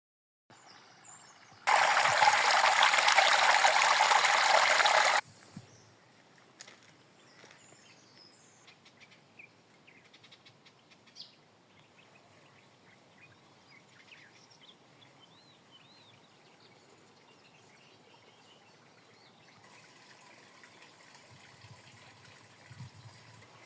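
A loud rush of water cuts in about two seconds in and stops abruptly after about three and a half seconds. Then a faint trickle of water runs on, with scattered bird calls above it and the water a little louder near the end.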